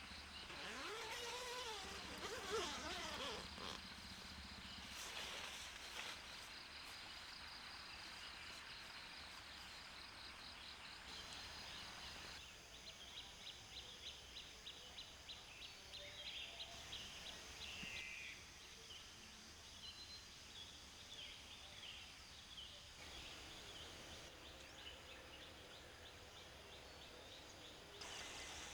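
Faint outdoor ambience of insects chirping in long runs of rapid, high ticks, with a few bird calls, mostly in the first few seconds.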